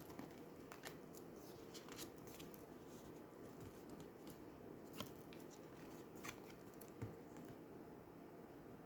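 Faint, scattered clicks and taps of oracle cards being handled and turned over one at a time, over a low room hum.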